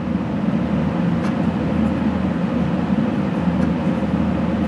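Steady low background rumble of a running machine, even and unchanging, with a faint tap about a second in.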